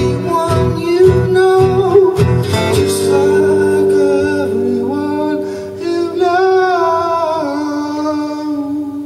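Acoustic guitar strummed along with a man singing. About three seconds in, the strumming stops and a chord rings out under long held sung notes, fading slowly toward the end.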